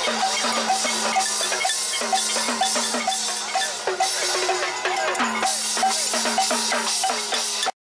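Celebration percussion: pots and pans, drums and cymbals banged in a quick, steady clatter, with many short pitched notes over it. The sound cuts out abruptly near the end.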